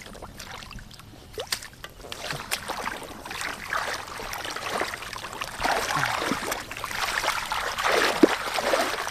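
Hands digging and sloshing through mud and shallow muddy water, groping for catfish; the splashing and squelching grows louder and busier over the second half.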